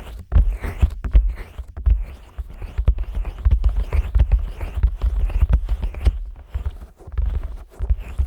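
Fingers rubbing and pressing on the silicone ears of a 3Dio binaural microphone, slick with petroleum jelly. This gives a heavy, irregular low rumble and soft thuds close up against the mics.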